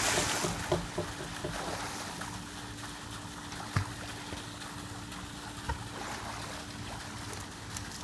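Pool water splashing back down and churning just after a person jumps in, fading over the first second or two into gentle sloshing as the swimmer moves through the water. A couple of faint knocks, and a faint steady hum underneath.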